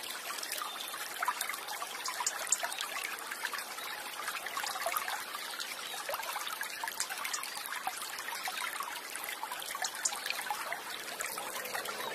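Water trickling and sloshing around a camera held just under the surface, full of small crackles and ticks.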